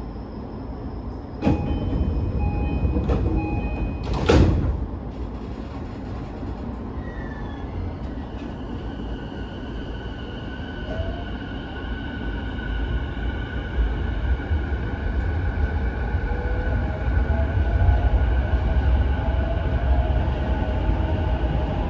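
E233-5000 series door chime beeping in short repeated tones, then the doors shutting with a loud knock about four seconds in. The train then pulls away: its Mitsubishi IGBT-VVVF inverter whines with slowly rising tones over a growing rumble from the wheels on the rails.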